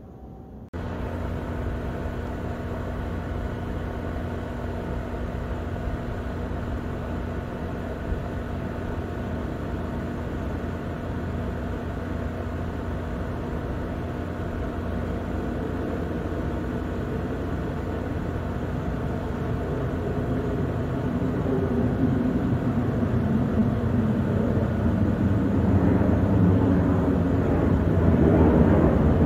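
Southwest Airlines Boeing 737 jet airliner on approach to land, its engine rumble with a steady low hum growing louder over the last ten seconds as it comes nearer.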